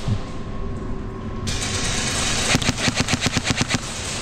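Airsoft rifle firing a rapid full-auto burst of about a dozen shots, roughly ten a second, starting about two and a half seconds in, with a couple more shots near the end.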